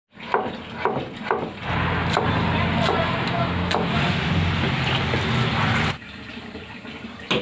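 Three sharp knocks in the kitchen, then a loud steady rushing sound with a low hum underneath, lasting about four seconds and cutting off abruptly; another knock near the end.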